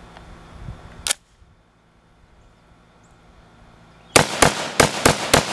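A sharp click about a second in, then a rapid string of about five rifle shots near the end, roughly three a second, echoing after the last.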